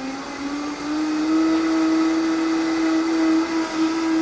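Countertop blender running at high speed, mixing crepe batter after the flour has gone in. Its motor whine rises in pitch over about the first second as it comes up to speed, then holds steady.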